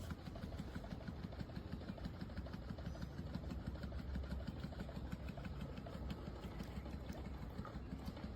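A motor running steadily: a low hum with a rapid, even flutter.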